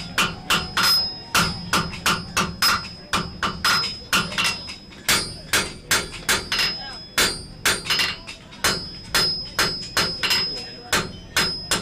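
Blacksmith's hammer forging iron on an anvil, struck in a steady rhythm of about two to three blows a second, with a high ring from the anvil sounding through.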